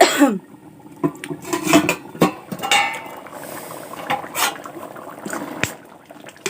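Household clatter of dishes and utensils: scattered clinks and knocks, with a short squeak that falls in pitch at the start and a brief rattle in the middle.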